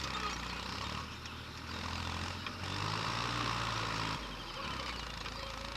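Backhoe loader's diesel engine running, revving up about two and a half seconds in and dropping back a little after four seconds.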